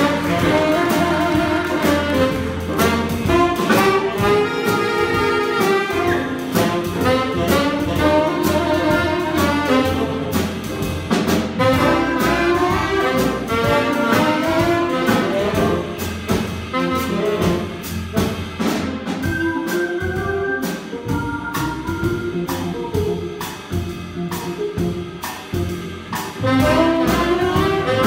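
Small jazz ensemble playing a blues: alto and tenor saxophones and flute over upright bass, drums and keyboard. The band drops to a quieter stretch in the second half and comes back in full near the end.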